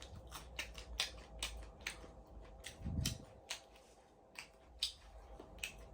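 Crunchy fried shrimp being broken apart and chewed: an irregular run of sharp, crisp crackles as the tail is pulled off and the shell bitten, with a dull thump about three seconds in.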